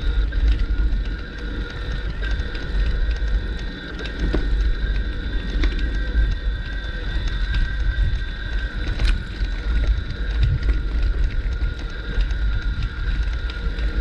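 Bicycle riding along a forest track: a constant low rumble from the ride, with a few sharp knocks from bumps and a steady high whine.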